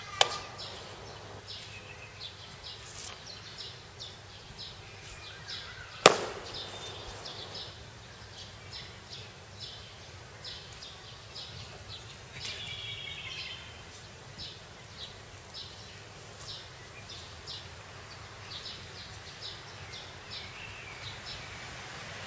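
Small birds chirping over and over in the background, with a sharp smack just after the start and a much louder sharp smack about six seconds in from the Chen-style taiji performer's kicks and stamping movements.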